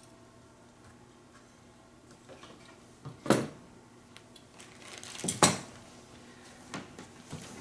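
Aluminium rods of a GE attic TV antenna clattering as the antenna and its parts are set down on a wooden floor: two loud metallic clatters, about three seconds in and again two seconds later, with lighter clicks between.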